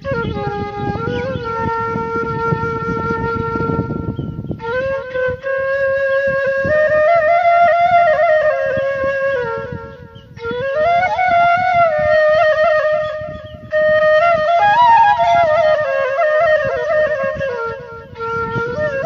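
A flute-like woodwind melody of long held notes that slide between pitches, played in phrases of a few seconds with short breaks between them. A low rumble lies under the first few seconds.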